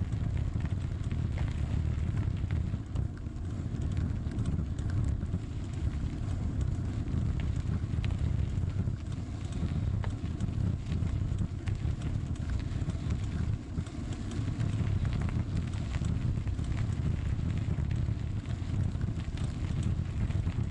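Bicycle rolling steadily along a gravel path: a constant low rumble of tyre and wind noise on the microphone, with scattered small clicks and rattles from the gravel and the bike.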